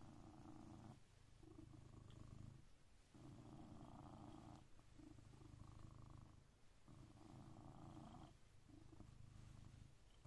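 Blue British Shorthair cat purring steadily and quietly. The purr swells and eases with each breath, about every two seconds.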